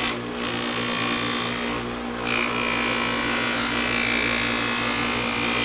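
Bench buffer motor running with a steady hum while a steel knife blade is pressed against the spinning buffing wheel charged with polishing compound, giving a steady hiss. The hiss breaks off briefly twice, near the start and about two seconds in, as the blade is lifted and repositioned on the wheel.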